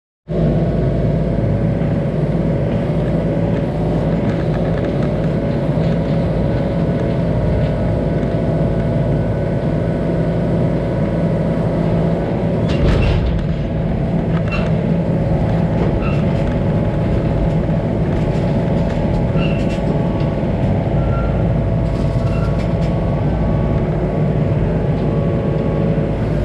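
An engine running steadily at an even speed, starting abruptly, with a brief louder rush about halfway through and a few faint short high-pitched tones later on.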